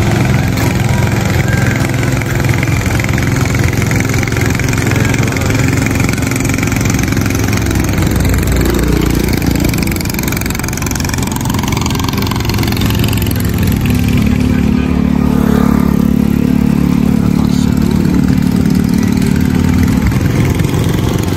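Small engine of a motorized banca boat running steadily as the boat passes along the river, with a louder, steadier hum in the last third.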